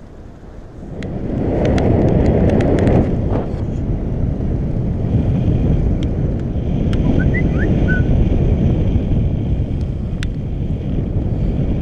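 Airflow buffeting the microphone of a paraglider pilot's harness camera in flight: a loud, steady low rumble that swells about a second in and then holds.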